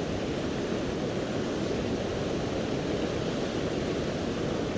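Steady rushing of a river in flood: fast, high water pouring over rocks, an even noise with no breaks.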